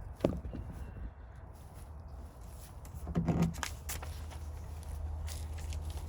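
Handling of a molded rubber-plastic floor liner inside a pickup cab: a sharp knock about a quarter second in, then a cluster of knocks and rustling around three seconds in, over a low steady hum.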